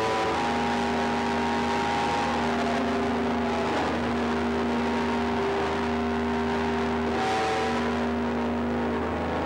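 Live experimental noise music played loud through a PA: a dense, unbroken wall of harsh noise over a low hum, with held electronic drone tones that step to new pitches every second or two.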